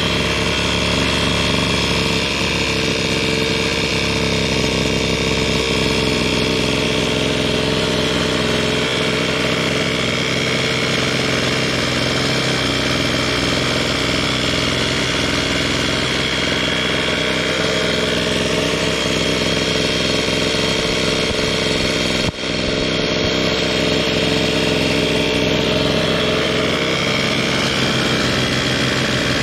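Zenoah G23LH two-stroke engine with a high-compression head kit and expansion pipe, running steadily on the stand, with a brief dip about three-quarters of the way through.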